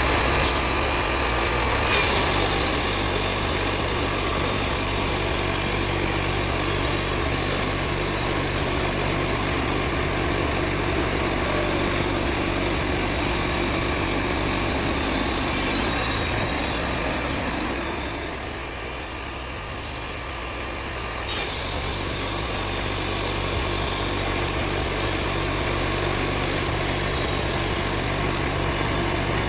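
Wood-Mizer portable band sawmill running, its engine driving the band blade as it cuts through a poplar log. The sound drops and dulls for about three seconds partway through, then picks back up.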